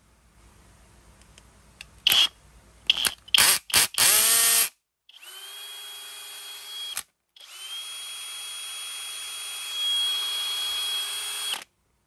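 Brushless motor of a Flex FX1271T 24V cordless hammer drill. It starts with a few short trigger blips, each winding down in pitch, then runs freely at a steady pitch twice, for about two seconds and then about four, the second run getting louder near the end.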